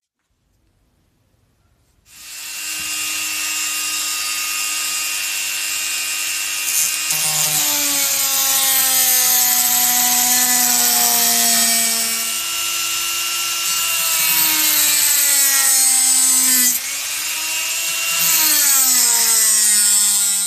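Handheld rotary tool with a small cut-off disc cutting through a curved piece of PVC pipe, starting about two seconds in. A high motor whine rides over a gritty grinding hiss, and the pitch sags and recovers several times as the disc is pressed into the plastic.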